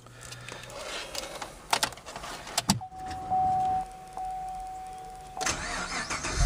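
Keys jingling and clicking as the switchblade key goes into the ignition and is turned. A steady high tone follows for a couple of seconds, and then the starter cranks the 6.2-litre V8, which fires right at the end.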